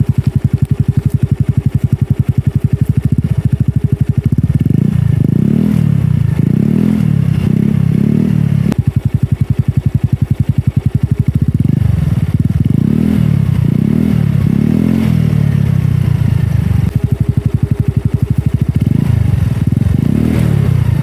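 Motorcycle engine running through a Sun Racing V2 adjustable aftermarket exhaust. It idles with a fast, even putter and is revved in short throttle blips in three spells: about 4 to 8 seconds in, around 12 to 16 seconds, and again near the end.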